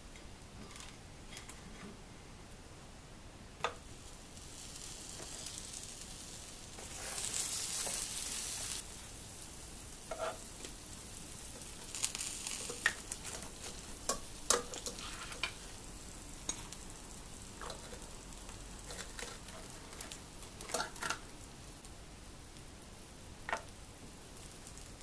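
Melissa sandwich toaster sizzling as buttered bread, ham and cheese cook on its hot plates, with a louder hissing stretch about a third of the way in. Scattered sharp clicks and knocks from handling the grill and sandwiches.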